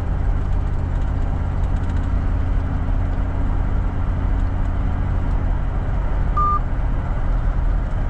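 Steady low engine and road drone inside a moving vehicle's cabin. A single short beep sounds about six and a half seconds in.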